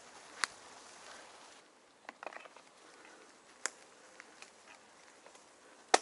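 Bicycle rolling along a leaf-strewn dirt forest track: a faint steady hiss broken by a few sharp clicks and knocks, a small cluster about two seconds in and the loudest just before the end.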